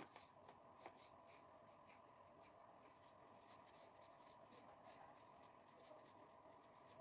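Near silence: faint rustling and small ticks of plastic-gloved hands handling food, over a faint steady hum.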